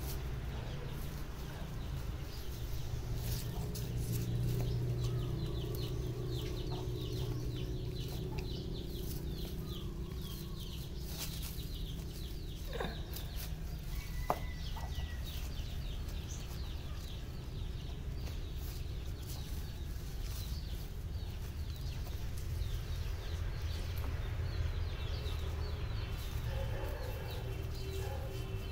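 A dog nosing and pushing at the soil and leaves under a hedge to bury a bone, giving scattered light scrapes and rustles over a steady low hum. Fowl cluck in the background.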